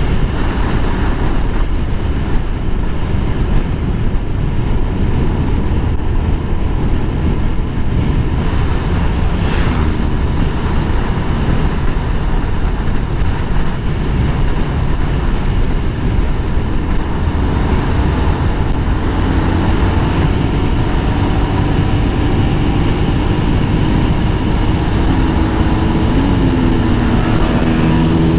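Wind buffeting the microphone on a moving motorcycle, over the steady noise of its engine and tyres at road speed. Near the end another motorcycle comes close alongside, its engine note rising and falling.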